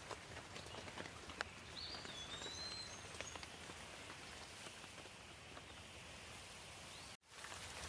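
Steady light rain with scattered drop ticks, and a bird chirping a few times in the first half. The sound cuts out for an instant near the end.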